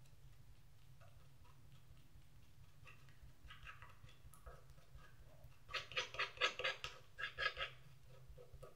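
Metal palette knife mixing thick paint on a palette: quick, light clicks and taps of the blade in short strokes. They come in a brief run of about six a second around the middle and are louder there, over a low steady hum.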